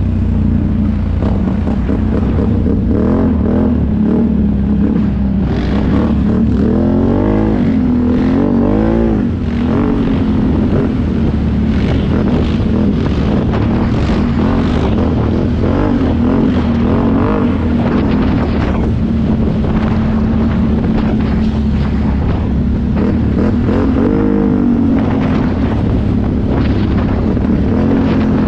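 Can-Am ATV engine running under way off-road, its pitch swinging up and down several times as the throttle is worked, from about three to nine seconds in and again near the end, with frequent short knocks over it.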